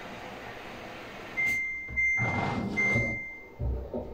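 Samsung washing machine's control panel beeping as its buttons are pressed: three high beeps in quick succession, starting about a second and a half in, with a dull thump near the end.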